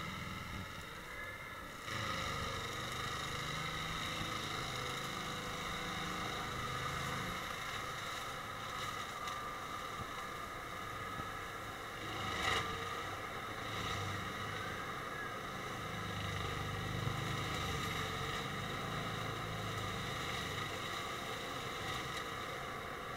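Farm tractor with a rear-mounted forestry mulcher running steadily as it grinds stumps and brush: a steady high whine over a low, shifting engine rumble. One sharp knock about halfway through.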